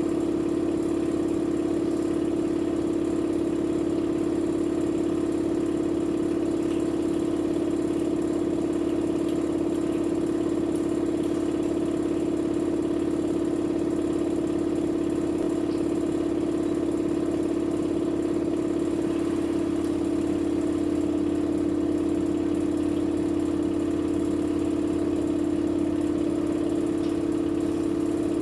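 Electrolux washing machine in its spin cycle, the drum turning at a steady high speed with an even, unchanging hum of one pitch.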